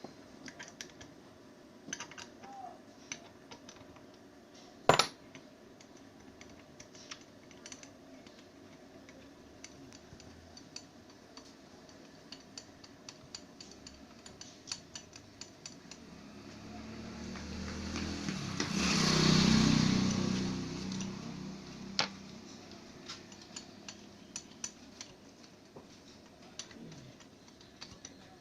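Small metal clicks and clinks of hand tools and parts being handled while an electric hand planer is taken apart, with one sharp knock about five seconds in. About two-thirds of the way through, a broad noise swells up and dies away over about five seconds.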